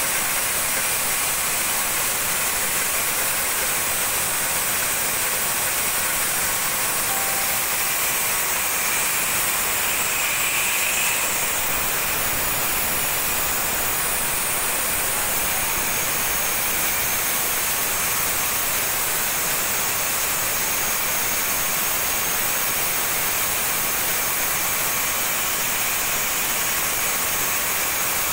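Homemade portable sawmill running, a steady, unbroken machine noise with a strong high hiss.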